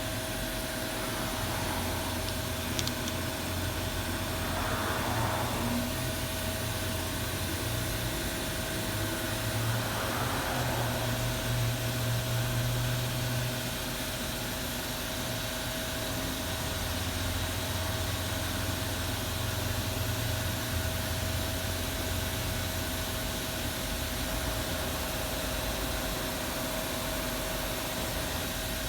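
Haas VF-4 CNC vertical mill running through a tool change: a steady mechanical hum with a constant whine. A light click comes about three seconds in, and two short, faint rushes of noise come around five and ten seconds in.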